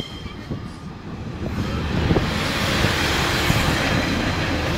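Northern Rail Pacer diesel railbus passing close by over a level crossing. Its engine and wheel rumble build up about a second and a half in, with a few knocks from the wheels on the track, and then hold steady as the carriage goes by.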